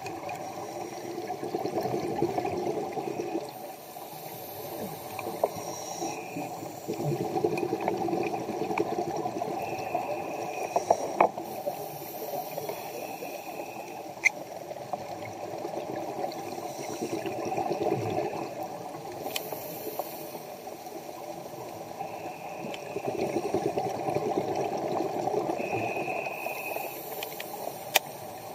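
Scuba diver breathing through a regulator underwater. Several times a rush of exhaled bubbles rises and fades over two to three seconds. Between them come short hisses of inhalation, and there are a few sharp clicks.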